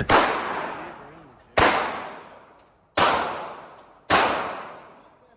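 Four gunshots from a firearm fired at a shooting range, spaced about a second to a second and a half apart, each followed by an echo that dies away over more than a second.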